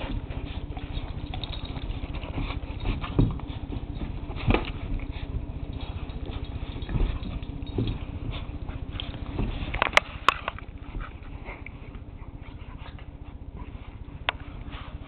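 An adult pit bull and a pit bull puppy play-wrestling on carpet: scuffling with scattered soft thumps and knocks over a steady low hum, and two sharp clicks about ten seconds in.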